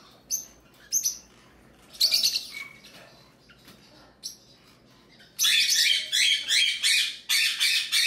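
Small parrots chirping: a few scattered short calls, then from about five seconds in a busy run of quick, repeated chirps.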